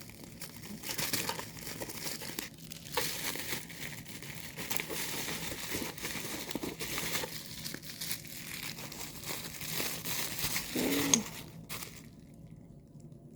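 Packaging crinkling and rustling as items are pulled out of a shipping box, with irregular crackles, stopping about a second before the end.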